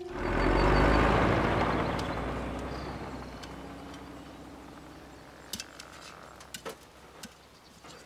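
Cartoon sound effect of a heavy vehicle's rumble, swelling at once, then fading slowly over about five seconds. A few faint clicks come near the end.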